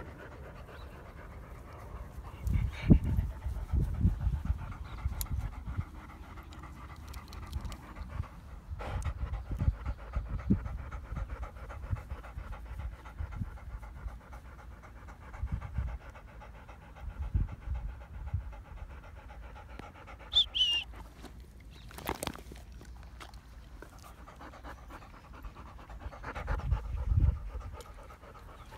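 A dog panting hard close to the microphone, steady quick breaths throughout, with uneven low rumbles on the microphone. A short high squeak comes about two-thirds of the way through, followed by a sharp click.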